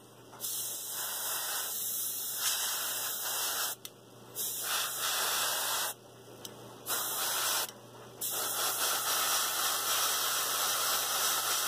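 Airbrush spraying thinned base-colour paint onto a figure's head: a hiss of air and paint in four long bursts, with short breaks about 4, 6 and 8 seconds in as the trigger is let off.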